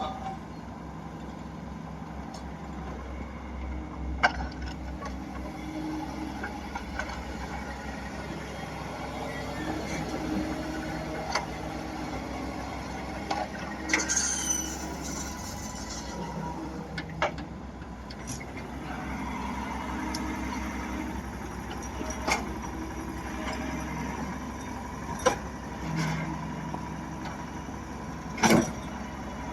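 Diesel engine of heavy earth-moving machinery running steadily, with sharp knocks every few seconds and a brief high squeal around the middle.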